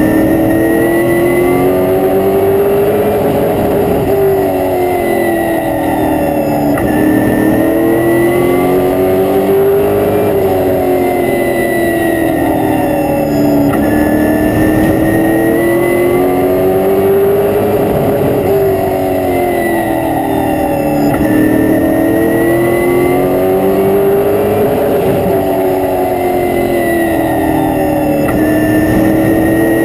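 Stock car engine heard from inside the cockpit at racing speed on a short oval. The revs climb and drop again about four times, rising down each straight and falling off into the turns, over steady road and wind noise.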